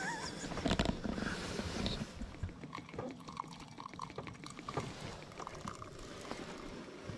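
Liquid pouring from a stainless steel vacuum flask into a ceramic mug. A few knocks and handling thumps, the loudest sounds, come in the first two seconds.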